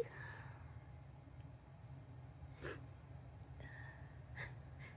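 A person's short, sharp breaths, quiet and a couple of seconds apart, in the lull between fits of sneezing.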